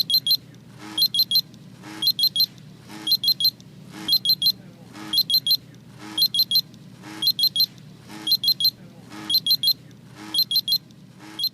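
Personal carbon monoxide monitor alarming with quick groups of short, high beeps repeating about once a second. It has detected carbon monoxide given off by the ground coffee squeezed from the bag.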